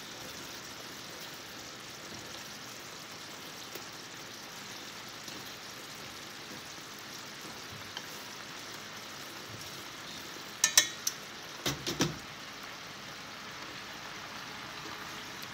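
Kale and chard sizzling in oil in a pan on high heat, a steady hiss. About two-thirds of the way through come a few sharp knocks and clicks of utensils against the pan.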